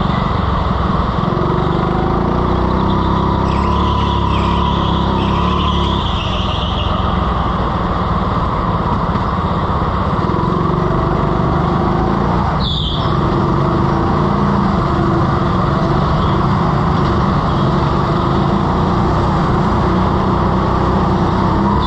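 Indoor rental go-kart running at speed, heard from on board: a steady, loud motor and rolling noise through the lap, with a few brief high-pitched squeals.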